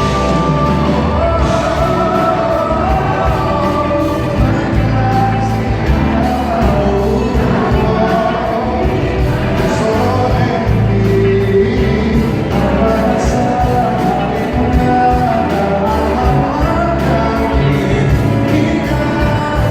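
Live pop band playing with singing, recorded in a large concert hall.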